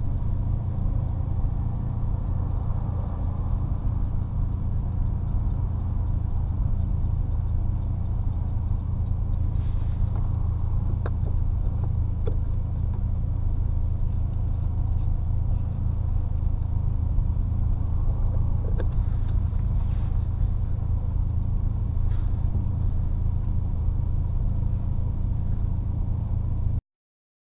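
A 2005 Chevrolet Cobalt with a custom exhaust, heard from inside the cabin as a steady low engine and exhaust drone while cruising slowly, with a few faint clicks. The sound cuts out completely for about half a second near the end.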